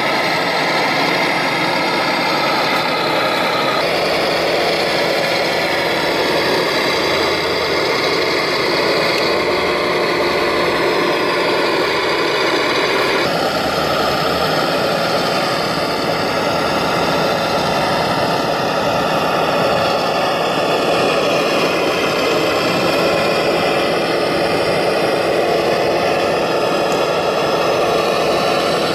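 Radio-controlled model MB-trac 1800 tractor driving, its electric drive motor and gears running with a steady whine that drifts in pitch. The whine jumps abruptly to a different pitch twice.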